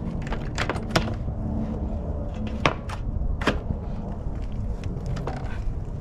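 Sharp clicks and knocks of radiator and fan-shroud parts being handled and fitted by hand, a few separate strikes with the loudest near one second and at about two and a half and three and a half seconds, over a steady low rumble.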